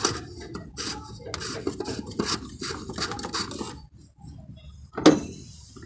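Hands fitting the plastic oil filter housing cap onto a Fiat 1.3 Multijet engine: irregular scraping and rubbing with small clicks, and one sharp knock about five seconds in.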